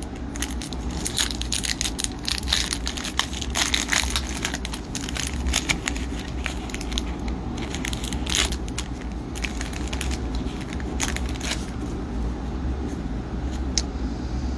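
Foil wrapper of a hockey card pack crinkling and tearing as the pack is opened, a run of irregular crackles that thins out near the end.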